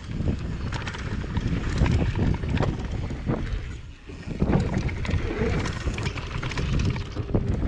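Mountain bike ridden fast down a dirt trail: wind buffeting the microphone, tyres on packed dirt and the bike rattling over bumps. It goes briefly quieter about four seconds in, then picks up again.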